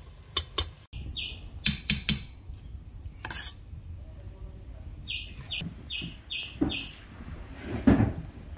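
A metal spoon clinks against a stainless steel pot of rice, followed by a few more sharp taps. Short high chirps repeat several times, mostly in the second half, like a small bird.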